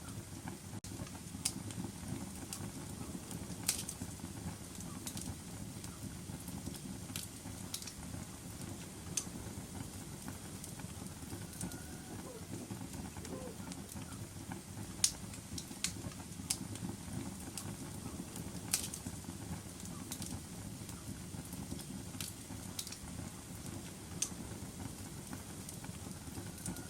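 Wood fire burning in a fireplace: a steady low rumble of flames with sharp crackles and pops at irregular intervals, the loudest a few seconds apart.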